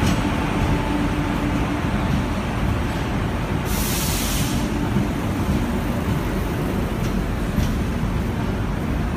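Humsafar Express passenger coaches rolling along a station platform: a steady low rumble of wheels on rail, with a brief hiss about four seconds in.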